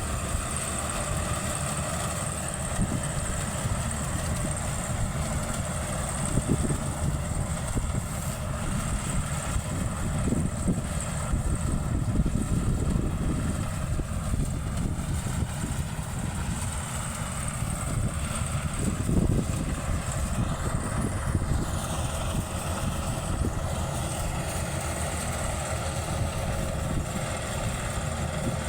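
Maxxi Bimo 102L rice combine harvester running steadily: a constant, even engine-and-machinery drone with no change in speed.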